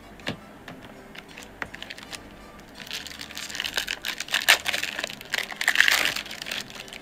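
Foil trading-card pack wrapper crinkling as it is handled and torn open: a few light clicks first, then from about three seconds in a dense crackling that is loudest near the end.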